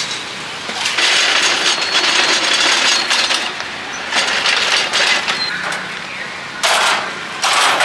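Stir-frying in a wok: a metal spatula scraping and clanking against the wok amid the sizzle of frying. It comes in loud, uneven stretches, with two short bursts near the end.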